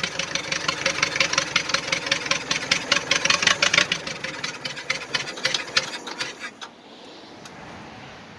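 Old tractor's rebuilt gasoline engine running on its first start after a rebuild, with a quick, even firing beat, then shutting off about six and a half seconds in. Only a faint steady hiss is left after that.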